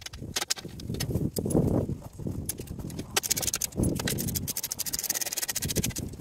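Metal clicking and knocking from bolts being fastened on a metal UTV skid plate by hand and tool, with a dense run of rapid clicks over the last few seconds. Two dull rubbing noises come about a second and a half in and again about four seconds in.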